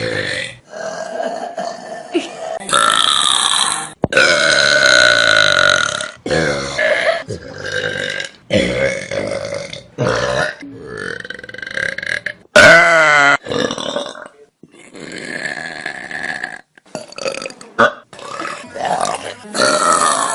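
A rapid string of loud human burps from different people, one after another, cutting abruptly from one short clip to the next. Several are long and drawn-out, held for a second or two.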